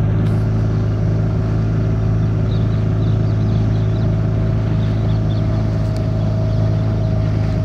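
Motorboat engine running steadily under way, a constant low drone that holds the same pitch throughout.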